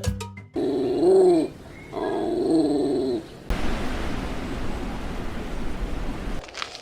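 A dog whining twice, each call drawn out for about a second and rising then falling in pitch, followed by a few seconds of steady hiss-like noise that cuts off near the end.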